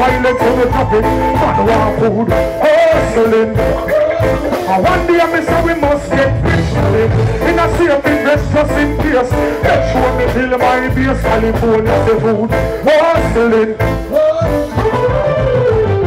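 Live reggae band playing loudly with a steady beat, a male vocalist singing into a microphone over it.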